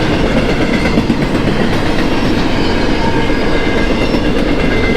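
Union Pacific container freight train rolling past close by: a loud, steady rumble and clatter of wheels on rail.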